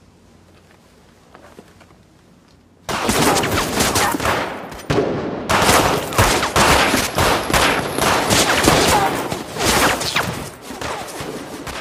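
Many handguns firing at once in a rapid, continuous volley of shots. It starts suddenly about three seconds in, after a low, quiet opening.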